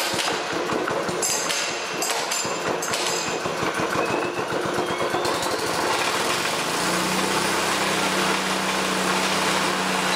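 Honda 5 hp single-cylinder engine running, belt-driving a Fisher & Paykel Smart Drive washing-machine motor as a generator. A rising whine comes in about halfway through, and about two-thirds of the way in the sound settles into a steady hum.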